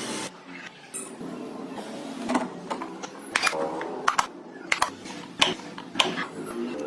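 Irregular sharp taps and clicks of wooden pieces and hand tools being handled, about a dozen in a row, some with a brief ring.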